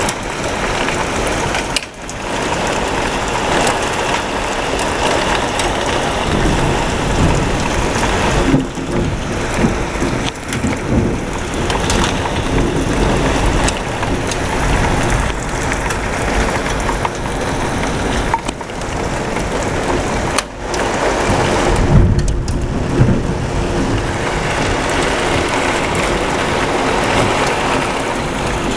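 Heavy rain pouring down steadily during a severe thunderstorm, with thunder rumbling at times.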